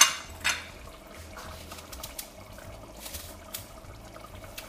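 Lamb stew in a tomato sauce simmering in a stainless steel pot over a low gas flame: faint steady bubbling with scattered small pops under a low hum. Two brief sharp sounds come in the first half second.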